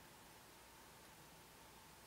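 Near silence: room tone, a faint steady hiss with a faint high steady hum.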